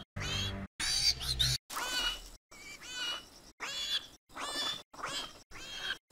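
Baby tarbosaurus creature sound effects: a string of short, high-pitched squeaky chirps and squeals, about eight separate calls cut one after another with brief silent gaps between them.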